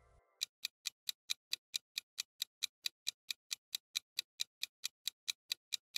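Quiz countdown-timer sound effect: clock-like ticking, steady and evenly spaced at about four to five ticks a second.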